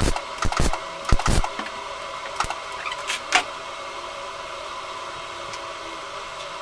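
MIG welder stitching a steel patch panel into a van door with short tack welds: about six brief crackling bursts in the first second and a half, then the arc stops. A steady hum carries on underneath, with a few faint clicks.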